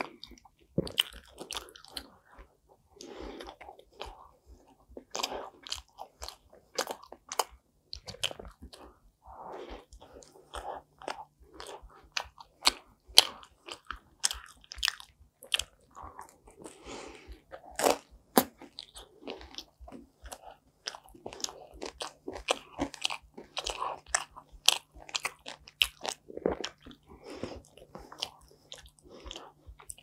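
Close-miked eating: a person biting and chewing a thick-crust pizza slice, with a dense, irregular run of sharp crunches and softer chewing sounds in between.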